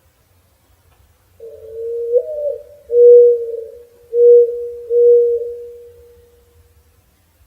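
Mourning dove singing its cooing song, starting about a second and a half in: a first coo with a rising lift, then three long, low coos that trail off.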